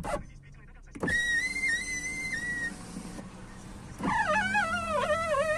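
Power window regulator in a 2011 Skoda Octavia door squealing as the glass moves, in several squeaks. A click comes before a steady high squeal about a second in, and another click before a wavering, whine-like squeak about four seconds in. The squeak is typical of grease washed out of the regulator's original rollers or cables; the owner places it at the front left roller.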